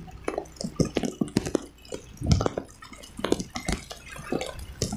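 Heavy rain hitting a phone's microphone: a rapid, irregular patter of sharp taps and splats over a wash of water noise.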